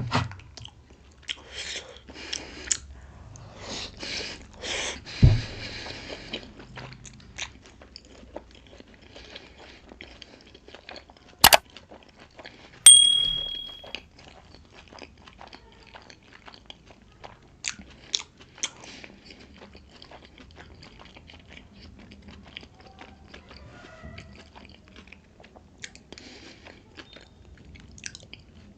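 Close-up eating of pork momo dumplings: chewing and biting with small wet mouth clicks throughout. A sharp knock comes about eleven seconds in, and a sharp clink that rings on for about a second follows shortly after.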